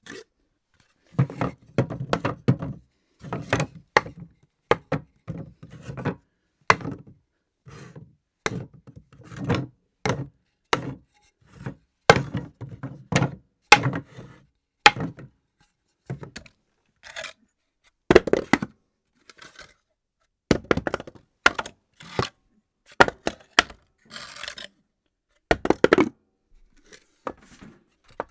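Objects dropped on a floor one after another: a long series of thuds and clattering knocks, some followed by a few quick bounces, with short pauses between the drops.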